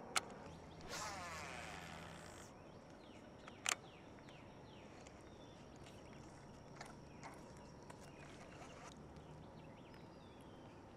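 A baitcasting reel during a cast: a sharp click, then about a second and a half of the spool whirring as line pays out, and a second sharp click a little later. Faint bird chirps follow.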